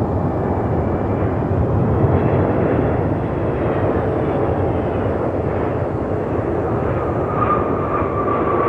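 Arriving Boeing 777-200ER's jet engines giving a steady, loud rumble, with faint falling whines in the middle and a higher steady whine coming in near the end.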